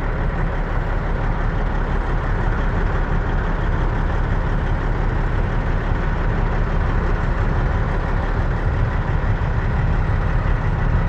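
Heavy-haul semi truck's diesel engine running steadily, an even low rumble that holds the same pitch and level throughout.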